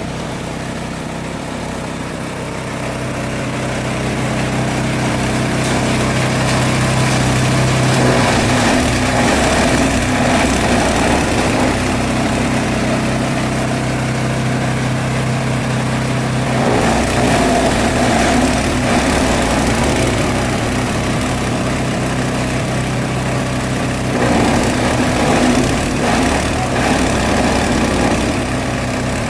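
Engine-driven chopper-grinder running steadily while shredding elephant grass through a 15 mm screen, with a constant engine hum and uneven, busier patches of chopping noise that come and go as the grass is fed in.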